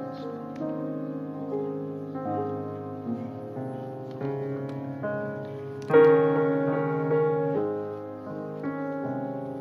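Piano playing slow held chords, changing about once a second, with a louder chord struck about six seconds in.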